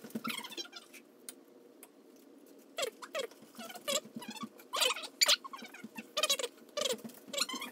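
A metal spoon scraping the skin off a fresh ginger root in short, quick strokes. The strokes are faint at first, then louder from about three seconds in, at roughly two a second.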